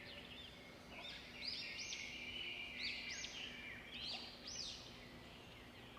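Small cage birds chirping faintly: short, high, arching chirps in little clusters every second or so, over a faint steady hum.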